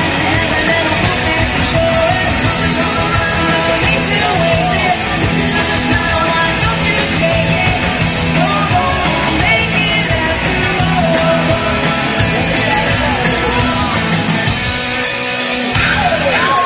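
Live rock band playing: a woman singing lead over distorted electric guitar and a drum kit. The band stops near the end.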